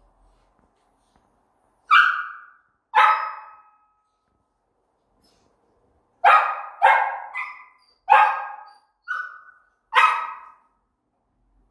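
Samoyed puppy barking in short, sharp barks: two near the start, then a quicker run of about six. It is barking as if in pain, with no clear cause.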